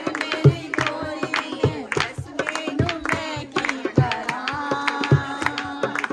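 Women singing dholki folk songs together, accompanied by rhythmic strokes of a dholak hand drum.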